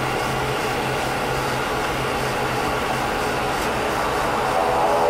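Cabin drone of an ATR 42-300 turboprop rolling on the runway after landing: the steady hum of its Pratt & Whitney PW120 engines and propellers, growing a little louder near the end.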